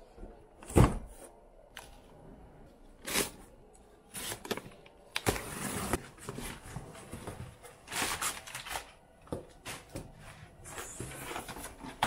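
A cardboard box is set down with a knock about a second in, then opened and unpacked by hand: cardboard flaps and crumpled packing paper rustling, with short knocks of packaged parts being handled.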